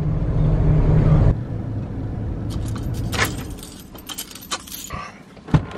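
Ford motorhome's engine and road noise heard from inside the cab, cutting off abruptly after about a second and a half. Then a bunch of keys jangles on its ring at the ignition, with scattered clicks and one sharp click near the end.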